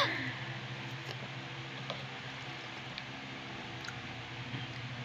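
Quiet eating sounds: a few light clicks of a spoon and fork against a plastic bowl of noodle soup over a steady low hum.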